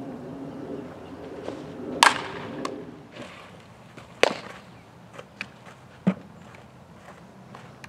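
A softball being hit and caught: a loud, sharp crack with a short ringing tail about two seconds in, a second sharp crack a couple of seconds later, and a duller pop near six seconds, over faint outdoor background noise.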